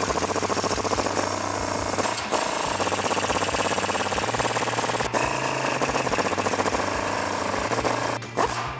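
Impact wrench with a 22 mm socket hammering the U-bolt nuts tight, in three runs with brief breaks about two and five seconds in, stopping shortly before the end.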